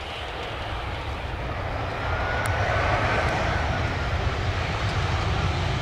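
Jet engines of an arriving easyJet Airbus A320, growing steadily louder as it comes closer, with a faint high whine over the noise.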